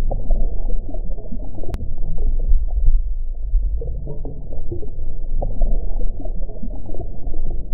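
Muffled underwater rumble and crackly bubbling from a swimmer's kicking legs, heard underwater with a dull sound and no highs.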